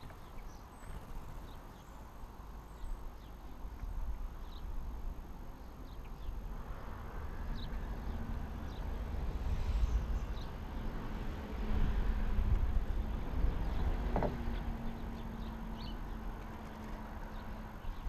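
A steady engine hum that swells in the middle and eases off near the end, over a low rumble, with faint short bird chirps scattered through.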